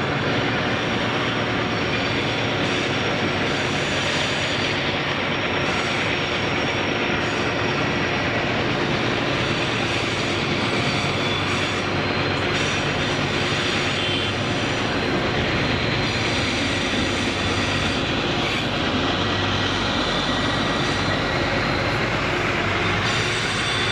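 Freight train's wagons rolling steadily past on the rails, with thin high wheel squeals now and then.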